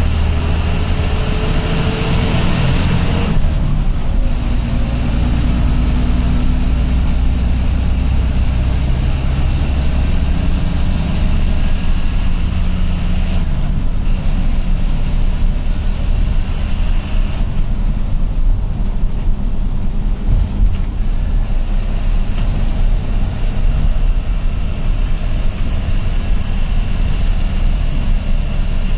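Ashok Leyland diesel bus engine running under way, heard from inside the front of the cabin along with road noise. Its note climbs for the first few seconds, then drops off suddenly, and shifts abruptly twice more around the middle, as at gear changes.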